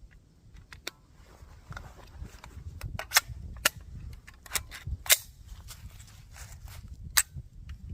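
Sharp, irregularly spaced cracks from a 3D-printed MAC-11 style 9mm pistol, about six loud ones among fainter clicks, while it is having repeated failures to feed.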